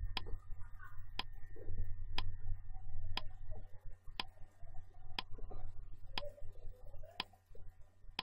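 Countdown timer sound effect ticking steadily, one sharp tick each second as the answer time runs down.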